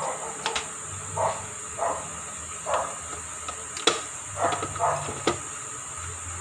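Air fryer running with a steady low fan hum under a high steady hiss, while short irregular pops and a few sharp clicks come through, the loudest click about four seconds in.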